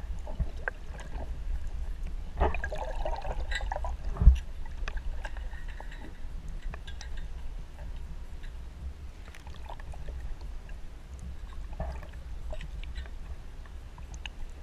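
Muffled water sound picked up by an underwater camera in its housing: a steady low rumble of moving water with scattered small clicks. A louder stretch of sloshing about two seconds in ends in a sharp knock about four seconds in.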